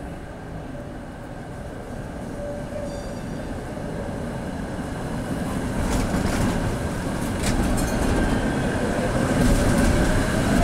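Two coupled Tatra T3 trams (a T3SUCS and a T3SU with accelerator control) rolling in and passing close by. The running noise grows steadily louder, with a few sharp wheel clicks about six and seven and a half seconds in. Near the end a whine rises in pitch.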